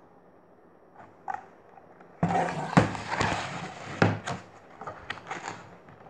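Handling noise as the recording device and picture book are moved: a sudden rustling scrape about two seconds in with two sharp knocks, lasting about two seconds, then a few light clicks.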